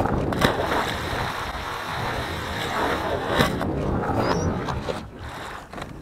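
A dog leaping from a small boat into the sea, hitting the water with a splash, then a few seconds of splashing and sloshing water that dies down near the end.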